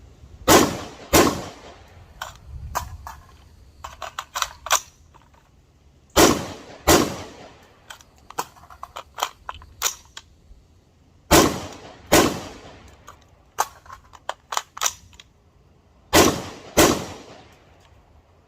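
Palmetto State Armory AR-15 with a Strike Industries J-Comp compensator firing eight shots as four double taps, each pair about five seconds apart. Fainter sharp cracks fall between the pairs.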